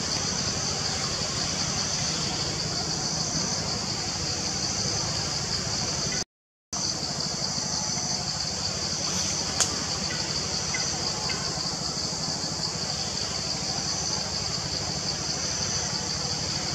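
Dense insect chorus: a steady high buzzing with a regular pulsing note in it, over a steady low rumble. The sound cuts out for a moment about six seconds in.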